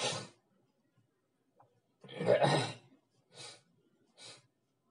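A person's breath sounds close to the microphone: a sharp breath at the start, a louder voiced exhale or throat noise about two seconds in, then two short breaths.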